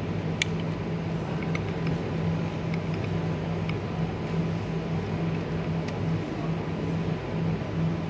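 Steady low hum of machinery and ventilation in a large hall. A few faint light clicks and taps come through, the first about half a second in, as the buckle plates and stop knob of a buckle folding machine are set by hand.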